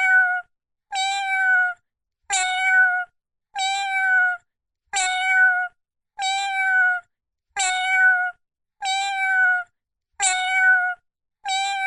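Cartoon kitten begging meow: the same high-pitched meow, slightly falling at its end, repeated about every 1.3 seconds as an identical loop.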